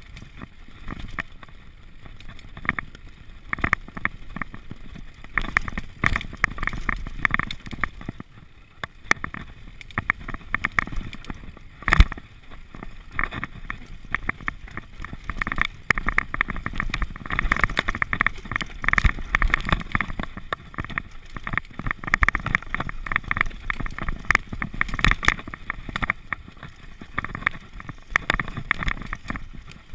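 Mountain bike descending a rough dirt forest trail: a continuous clatter of rapid rattles and knocks from the bike running over roots and rocks, with one sharp, loud knock about twelve seconds in.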